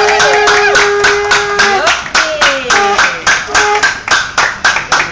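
A group clapping hands in a steady rhythm, about four claps a second. Over it a voice holds one long note until about two seconds in, then shorter sliding vocal notes follow.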